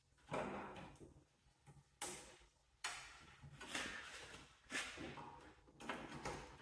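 A series of about six short scrapes and clunks, roughly one a second, from metal parts of a Cub Cadet garden tractor being handled and fitted by hand.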